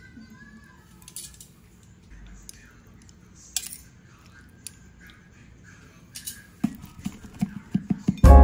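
Metal serving utensils clinking and scraping against a ceramic plate while pasta is plated, as scattered clicks with quiet gaps between, then a quick run of taps near the end as grated parmesan is sprinkled over. Music comes in right at the end.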